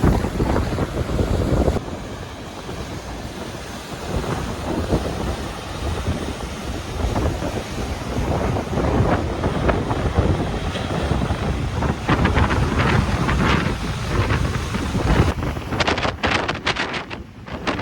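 Strong wind buffeting the microphone over the crash and wash of large storm-driven lake waves. The sound shifts abruptly about two seconds in and again near the end.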